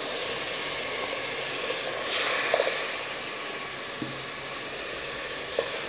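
Chopped tomatoes sizzling in hot ghee with browned garlic and ginger in a pan, the sizzle swelling about two seconds in.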